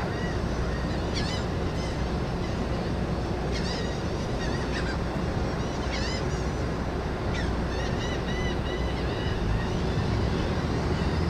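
A crowd of gulls giving short, repeated calls, scattered throughout and bunching together about two-thirds of the way in, over the steady low rumble of the ferry and wind.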